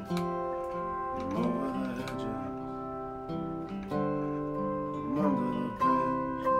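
Background music: a guitar picking and strumming chords that change about once a second.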